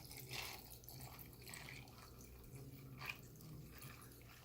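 Three faint, short liquid sounds from watermelon juice being sipped from a cup, over quiet room noise.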